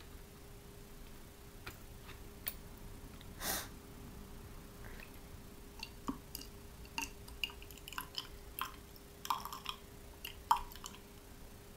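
Faint, scattered small clicks and soft wet squishing as distilled water is filled into the boiler of a Mamod TE1a toy steam traction engine, the clicks coming more often in the second half.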